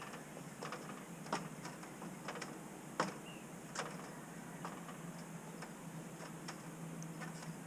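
Scattered light clicks and taps, about a dozen at irregular intervals, the sharpest about three seconds in, over a faint steady hum.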